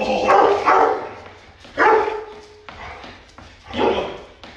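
Dog barking in loud bursts about every two seconds, the middle one trailing off into a short whine, as it jumps up at a person doing high knees. Under it, rapid regular slaps of hands on knees and feet on the concrete floor, about four a second.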